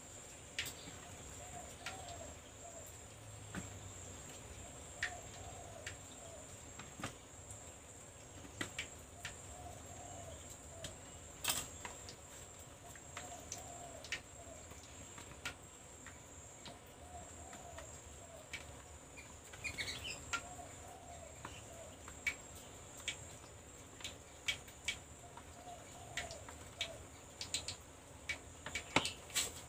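Birds calling, one with a short wavering call repeated about every two seconds, over a steady high insect drone, with scattered sharp clicks and taps from cut papaya being handled in a plastic bowl.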